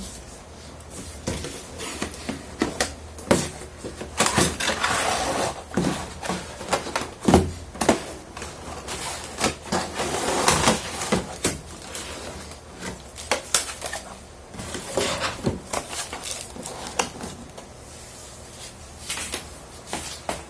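A figure's packaging being opened and handled: rustling with many scattered clicks and knocks.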